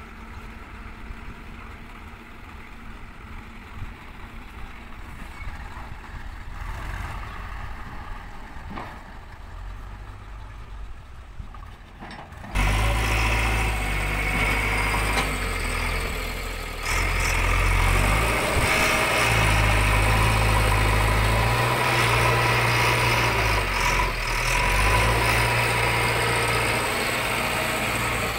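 At first, a tractor's diesel engine idles faintly. Then, after a sudden cut, a JCB 3DX backhoe loader's diesel engine runs loud and close, its revs rising and dipping as the loader bucket works a heap of soil.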